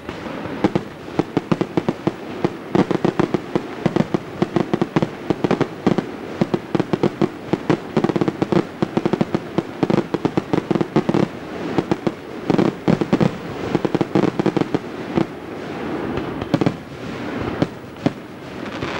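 Fireworks display: aerial shells bursting in a fast, continuous barrage of bangs, many a second, thinning out slightly near the end.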